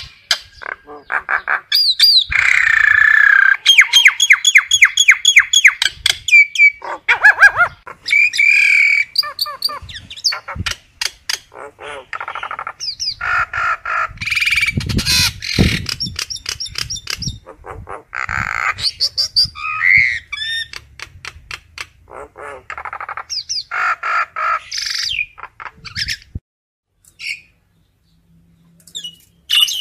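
Common myna calling: a loud, varied stream of harsh squawks, rapid clicking rattles and short whistled glides. It breaks off for a few seconds near the end.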